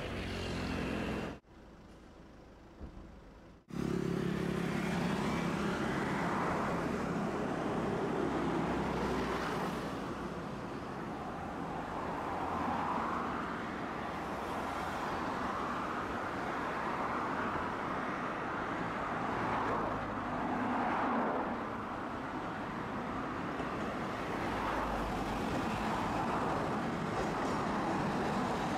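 Tosaden streetcar running, a steady rumble of motors and wheels on the rails that swells and eases. The sound cuts in and out abruptly a few times in the first four seconds before settling.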